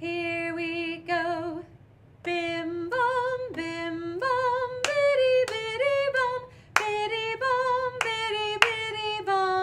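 A woman singing unaccompanied on nonsense syllables (bim, bum, biddy) in short, clearly pitched notes, with a few sharp hand claps in the second half.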